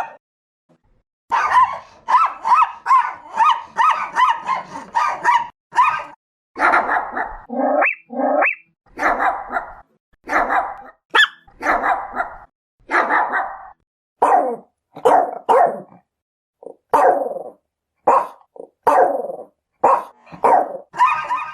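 Chihuahua barking: high-pitched yaps. A quick, even run of about two or three yaps a second for the first few seconds, then a slower, uneven string of single and paired barks.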